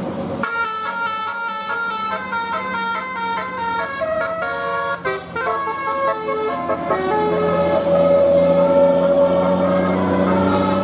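Telolet bus horn, a multi-tone air horn, playing a quick melody of short stepped notes, then slower, longer-held notes from about six seconds in.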